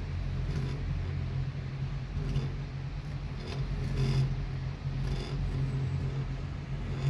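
Chairlift ride noise: a steady low hum and rumble with wind on the microphone, and a few light clicks here and there.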